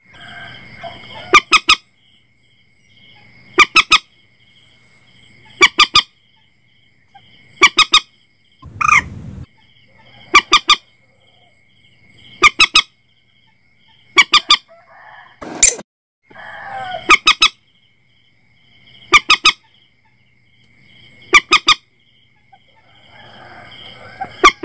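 Common moorhen calls: short, sharp honking notes in clusters of two or three, repeating about every two seconds, over a faint steady high-pitched trill.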